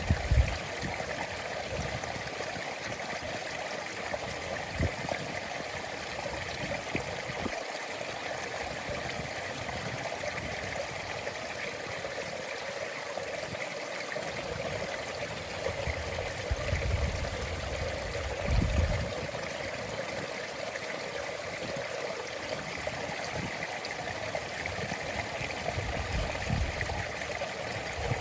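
A stream flowing steadily into the sea, its water running and trickling without a break, with a few brief low rumbles now and then.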